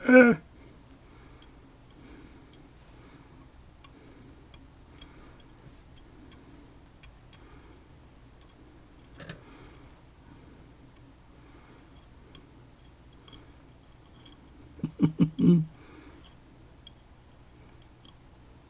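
Small lock pins and springs ticking and clicking faintly as they are handled and tested against a magnet, with a quick run of louder knocks near the end.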